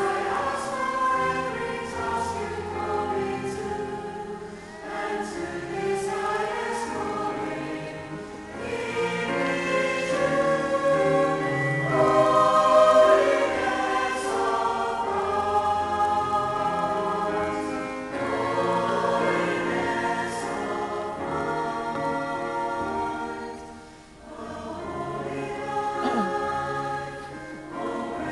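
Mixed choir of men's and women's voices singing in parts, phrase by phrase, swelling loudest about halfway through and dropping away briefly near the end before going on.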